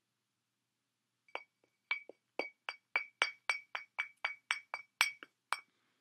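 Cockatoo tapping an empty glass wine bottle: a quick run of about fifteen sharp clinks, three to four a second, each with a short ringing note from the glass. The taps start about a second and a half in and stop shortly before the end.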